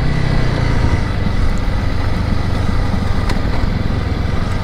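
Honda CRF300 Rally adventure motorcycle's single-cylinder engine running steadily while riding a dirt fire trail, under a constant rush of wind and tyre noise. The engine note drops a little in the first second, then holds, and there is a faint tick about three seconds in.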